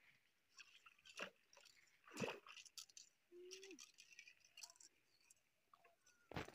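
Near silence broken by faint scattered clicks and rustles, with a louder knock about two seconds in and another sharp knock near the end.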